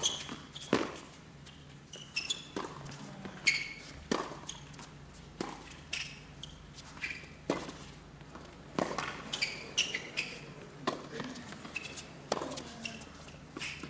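Tennis rally on a hard court: a serve, then the ball struck by rackets and bouncing on the court, a sharp pop roughly every second or so, with short high squeaks of tennis shoes on the court between the strokes.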